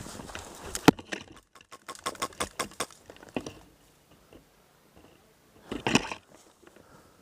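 Footsteps crushing dry brush and twigs, a run of uneven snaps and cracks, with a sharp crack about a second in and another cluster near the end.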